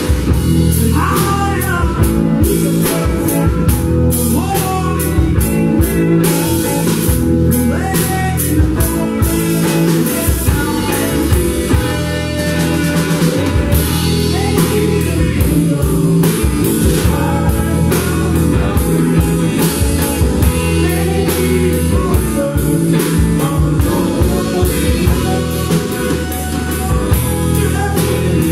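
Live blues-rock band playing loudly: electric guitars and a drum kit, with a woman singing.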